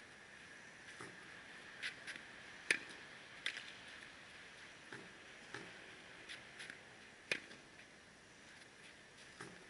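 Tennis practice against a ball machine: a string of sharp pops and thuds from the racket striking balls and balls bouncing on the court, the loudest hits about three and seven seconds in.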